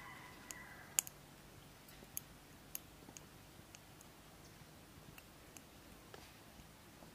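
Wood fire crackling in a stainless-steel portable wood-burning camp stove: scattered sharp pops and clicks at irregular intervals, the loudest about a second in.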